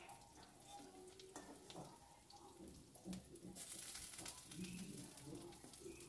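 Very quiet clinks and scrapes of a metal spatula against an aluminium wok and a steel bowl as fried potatoes are lifted out of hot oil, with a faint sizzle of the oil about halfway through.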